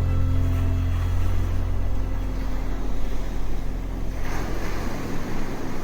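An engine's low, steady drone under a rushing noise, cutting off about five seconds in.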